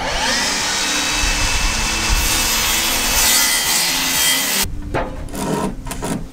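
Mitre saw cutting through a length of 90 by 45 timber, a dense, loud sawing noise that stops after about four and a half seconds, followed by lighter handling sounds.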